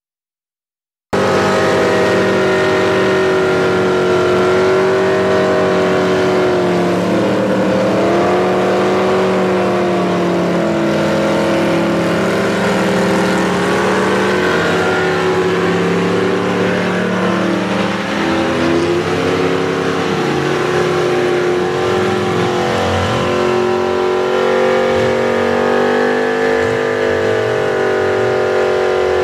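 Ford Maverick V8 doing a burnout: the engine is held at high revs, its pitch wavering up and down, while the rear tyres spin and screech on the asphalt. The sound starts suddenly about a second in.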